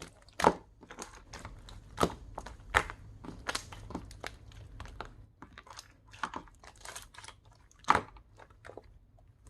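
Clear slime being squeezed and pulled by hand, making a steady run of sticky clicks and crackles with a few louder pops. It thins out near the end.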